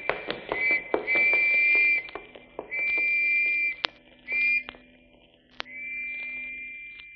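Police whistles blown in a string of blasts, each lasting half a second to a second, with sharp clicks between them. Each blast is a steady shrill double note, and the last one fades away.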